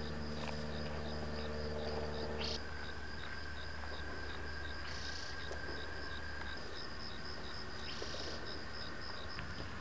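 Crickets chirping in a fast, even rhythm, several chirps a second, over a low steady hum that stops about two and a half seconds in.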